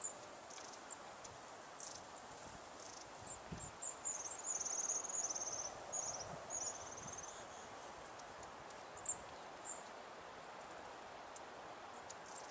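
Long-tailed tits giving thin, very high calls: scattered single notes, then about four seconds in a rapid run of notes lasting over a second, followed by a shorter run. A faint steady rushing noise lies underneath.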